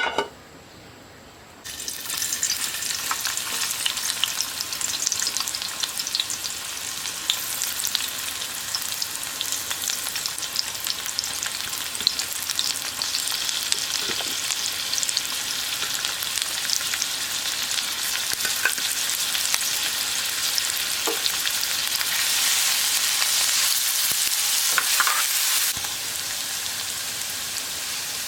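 Food frying in hot oil in a pan: after a sharp knock at the very start, the sizzle sets in suddenly about two seconds in and runs on as a dense hiss with scattered spits and ticks. It swells louder near the end, then eases back.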